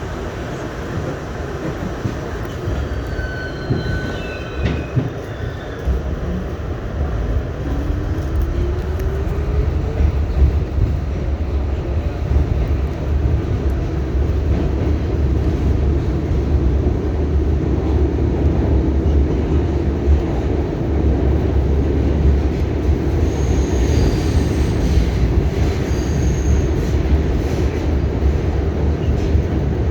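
R68A subway train running on the rails, heard on board: a heavy, steady rumble of wheels and car. There are brief high wheel squeals a few seconds in and again near the end, and a rising whine a few seconds in.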